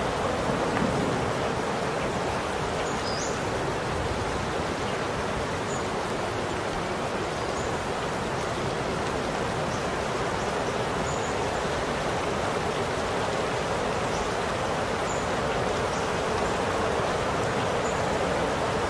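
Steady rain falling, an even hiss with no breaks; the last of a low thunder rumble fades out in the first second.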